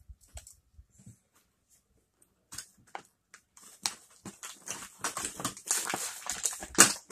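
Rustling, scraping and clicking of a plastic packaging tray as small toy pieces are picked out of it. A few faint ticks at first, then busier and louder handling in the second half, with the loudest click near the end.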